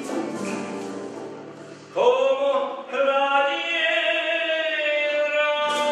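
A tuna's guitars and bandurrias strumming and fading, then about two seconds in men's voices come in, gliding up into long held notes; the strumming picks up again near the end.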